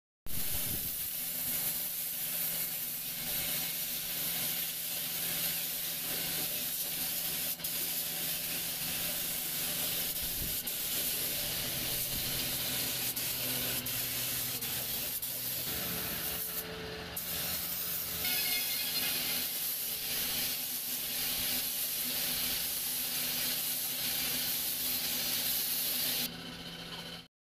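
Compressed-air spray gun hissing steadily as it sprays polish onto a wooden bed headboard, with a steady low hum underneath. The spray cuts out briefly about two-thirds of the way through and again just before the end.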